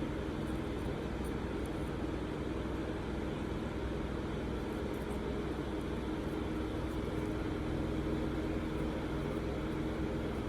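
Steady low background hum with a constant drone, and a few faint small clicks of handling.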